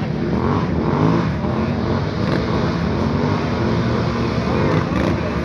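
ATV engine running, its pitch rising and falling with the throttle.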